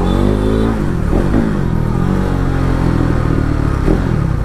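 Motorcycle engine running on the road. Its pitch falls over the first second, then holds fairly steady with small rises and dips.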